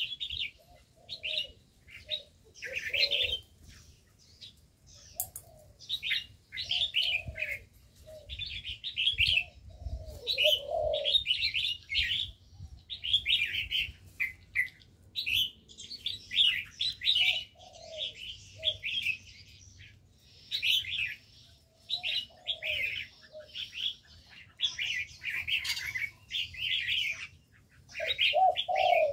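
Many caged birds chirping and twittering almost without pause, with short low calls now and then.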